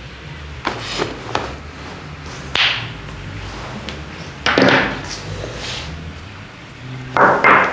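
A few short clicks and breathy rustling hisses over a low steady hum.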